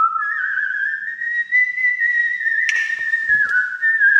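A person whistling one long note that climbs in small steps, holds, then steps down a little near the end. A few sharp clicks come about two-thirds of the way through.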